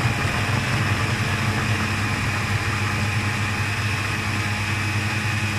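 Food processor running steadily with a high whine, its blade chopping raw beetroot in the bowl.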